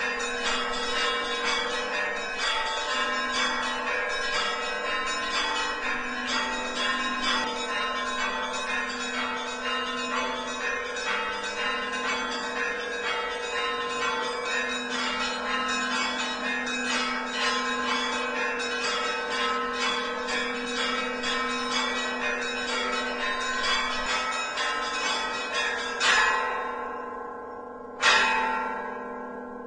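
Church bells ringing in a continuous, dense peal of several bells. About four seconds from the end the peal stops, and a single heavy bell is struck twice, about two seconds apart, each stroke left to ring out and fade.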